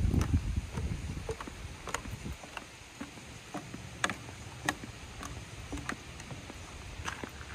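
Footsteps on a wooden dock, a light knock about every half to two-thirds of a second at a walking pace. Wind buffets the microphone at the start.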